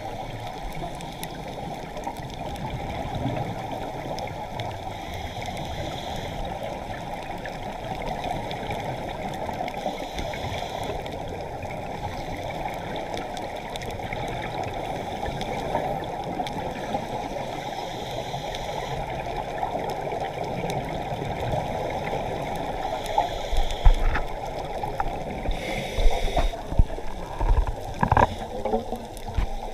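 Muffled, steady water noise as heard underwater on a dive, with a fainter hiss that recurs every few seconds. Several louder low thumps come in the last six seconds.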